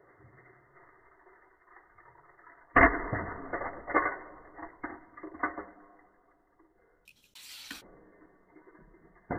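Hot Wheels die-cast toy car landing with a sharp knock about three seconds in, followed by a run of smaller clattering knocks over the next few seconds that die away. A short hiss comes near the end.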